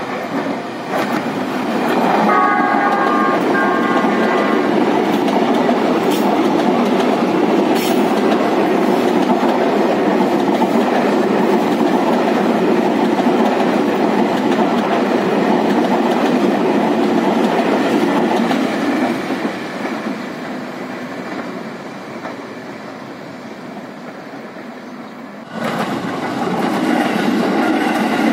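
Tokyu 8500 electric commuter train sounding its horn for about two seconds near the start, then passing close, its wheels rumbling and clacking over the rails. The noise fades as it runs away, then near the end another electric multiple unit, an ex-JR 205 set, is suddenly loud as it passes.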